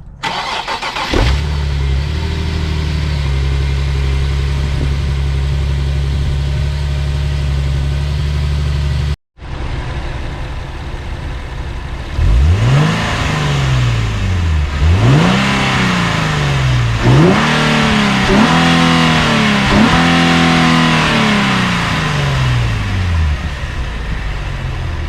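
Infiniti G37S's 3.7-litre V6, on its stock intake with an aftermarket cat-back exhaust, cold-started: the starter cranks briefly, the engine catches and settles into a steady cold idle. After a short break it is revved several times in quick succession, each rev climbing and falling back toward idle.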